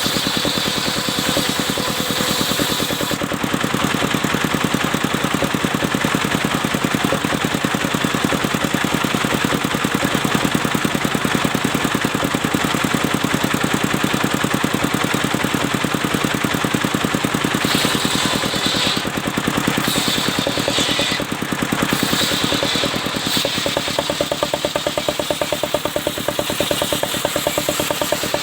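Engine of a mobile circular sawmill running steadily as it cuts albasia wood, with a higher hissing sound from the saw that eases off about three seconds in and comes and goes again later.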